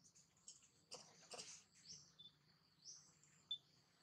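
Faint bird chirps: short, high, rising calls repeating about once a second, with a couple of brief sharper sounds a little after a second in.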